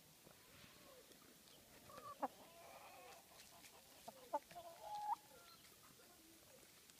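Black Australorp chickens clucking quietly, a short run of low calls between about two and five seconds in, with a few sharp clicks among them.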